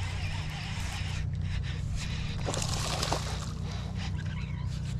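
A hooked fish being reeled in close to the boat, with a burst of water splashing about halfway through over a steady low hum.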